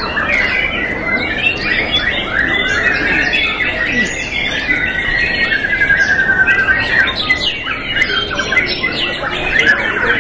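Several young white-rumped shamas (murai batu) singing at once: a dense, unbroken chorus of whistles, chattering and short phrases, with a fast trill about six seconds in.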